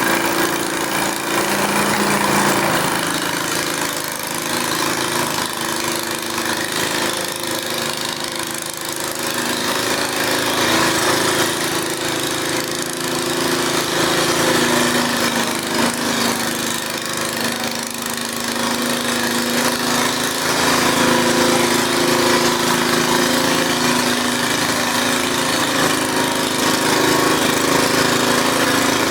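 Garden tractor engine running steadily while pulling a weight sled, its pitch wavering a little as it works.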